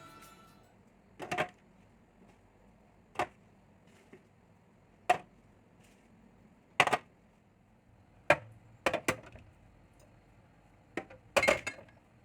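Short sharp knocks and clacks of food containers and groceries being set down and handled, about ten of them a second or two apart, with a quick double knock around nine seconds in and a cluster near the end.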